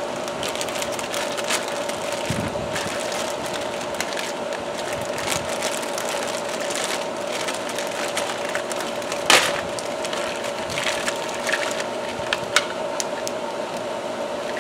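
Plastic bags crinkling and small plastic toy tool parts clicking and knocking as they are unpacked from a plastic toy toolbox, with one sharper knock about nine seconds in. A steady hum runs underneath.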